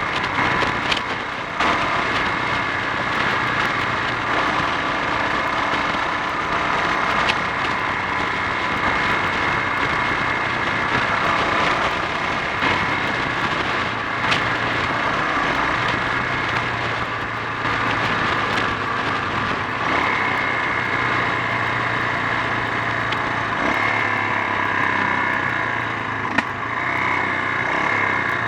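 Honda XL 350 single-cylinder four-stroke motorcycle engine running steadily while the bike is ridden along, with a slight change in engine note about two-thirds of the way through.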